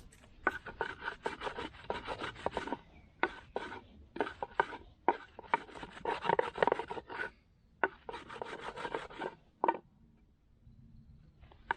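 A flat wooden board pressed down and rubbed rapidly back and forth over a roll of cotton on another board, making quick scraping strokes in bursts with short pauses: friction to heat the cotton until it smoulders into an ember. The rubbing stops near the end.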